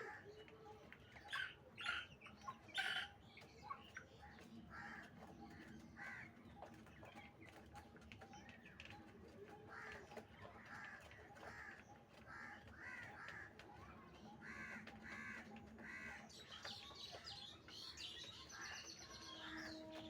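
Birds calling: a run of short repeated calls, with a few louder, sharper calls in the first three seconds.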